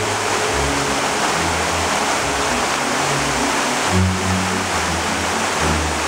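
Illuminated dancing fountain jets splashing, a steady rush of falling water, with music playing beneath it in low notes that change every second or so.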